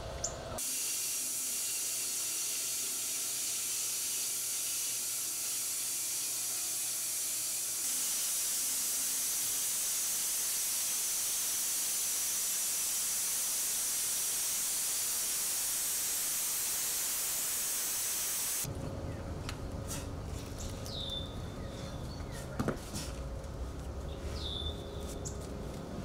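Steady hissing noise that cuts off abruptly about two-thirds of the way through. A quieter background follows, with a low steady hum and a few short chirps.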